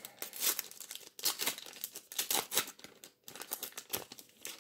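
Plastic wrapper of a Panini trading-card packet being torn open and crinkled in the hands: a run of irregular crackles and rustles.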